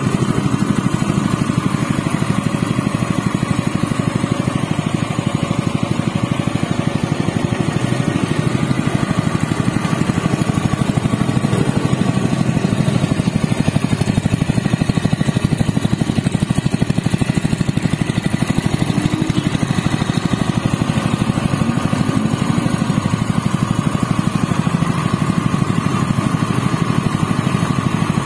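Honda GP200 196 cc four-stroke single-cylinder OHV petrol engine running steadily, with a fast, even exhaust beat.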